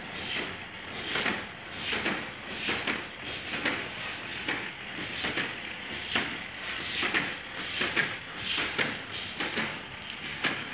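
A machine working a PVC pipe in repeated noisy strokes, about two a second, as holes are made in the pipe for a submersible filter screen.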